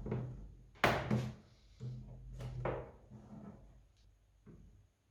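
A few knocks and clunks of a tool and the plastic headlamp housing being handled, the loudest about a second in, with a low hum under some of them.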